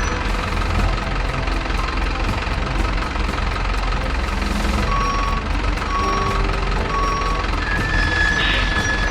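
RC model truck's simulated diesel engine sound running steadily. About five seconds in, a reversing beeper starts, beeping roughly once a second, and near the end a horn sounds briefly.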